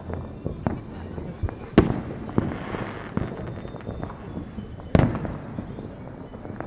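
Fireworks going off: two loud bangs of shells bursting, about three seconds apart, with a crackling after the first and smaller pops scattered around them.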